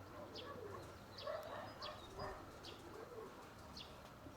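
Domestic pigeons cooing softly, several rising-and-falling coos, with a small bird giving short high chirps every second or so.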